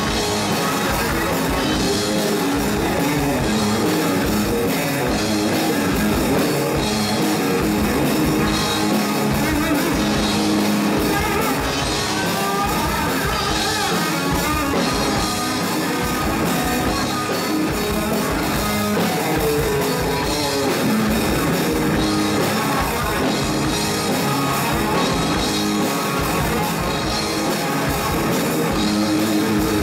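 Live rock band playing: electric guitars and drum kit, with a singer's voice at times.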